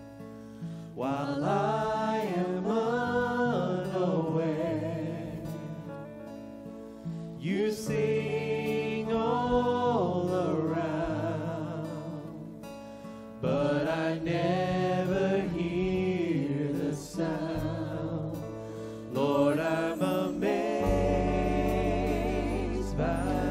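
Worship band playing a slow song: several men and women singing together into microphones over acoustic guitar, keyboard and bass. The sung phrases come in four times, with long held notes between.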